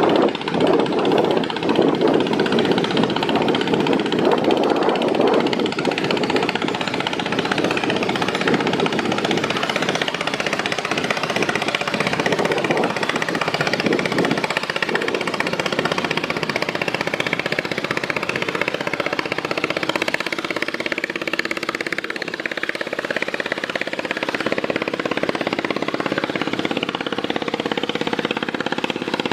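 Engine of a river passenger launch running steadily and loudly.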